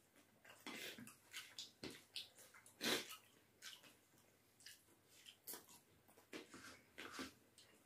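Close-up eating sounds: irregular wet chewing and lip smacking, with fingers squishing rice and dal on steel plates. One smack about three seconds in is louder than the rest.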